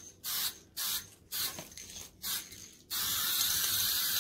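Aerosol spray can of automotive paint hissing: several short squirts about twice a second, then one continuous spray from about three seconds in.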